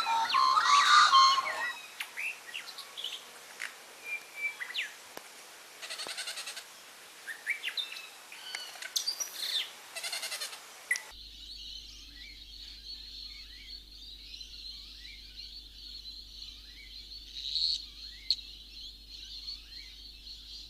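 Birds chirping and calling, with a few louder calls at the start. About eleven seconds in the sound cuts abruptly to a steady high buzz, with short falling bird chirps repeating over it.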